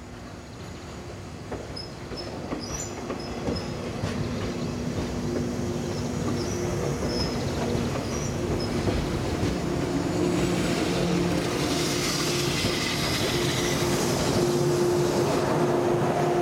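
A JR 485-series electric multiple unit passing close by, its wheels and running gear growing steadily louder as the cars go past, with a steady low hum from the train's equipment.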